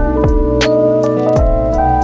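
Background music: held keyboard chords over a steady beat, about one low drum hit every three-quarters of a second.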